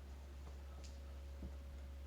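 Quiet room with a steady low hum and a couple of faint soft clicks.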